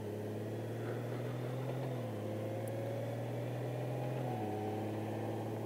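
2019 Honda Gold Wing's flat-six engine accelerating away from a stop, its hum edging up in pitch and then stepping down three times, about two seconds apart, as the dual-clutch transmission shifts up.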